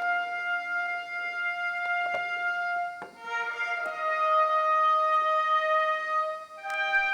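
Instrumental music in long held chords, the chord changing about three seconds in and again near the end.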